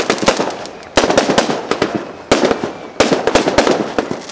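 Fireworks going off: loud bangs about a second in, again at two and a half and three seconds, each followed by a fast run of crackling pops.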